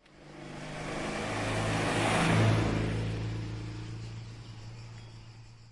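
A vehicle engine running with a steady low hum, growing louder to a peak about halfway through and then fading away.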